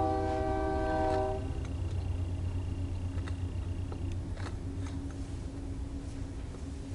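Freight locomotive air horn sounding a held multi-note chord that cuts off about a second and a half in, leaving a steady low rumble.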